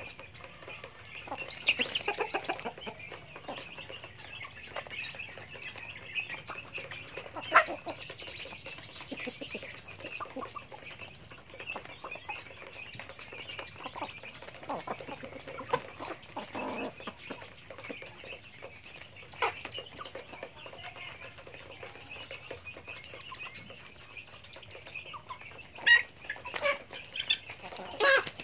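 Backyard chickens clucking softly as they peck at feed, with scattered short sharp taps and a few louder brief calls or flaps near the end.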